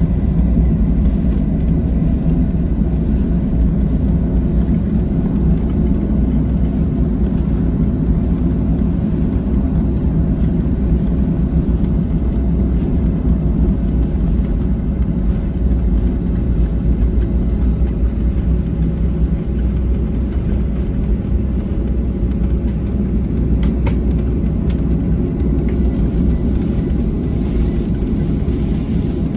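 Steady cabin noise of a Boeing 737-700 in operation: a loud, even rumble from its CFM56-7B engines and the airflow, with faint steady tones above it, heard from inside the passenger cabin.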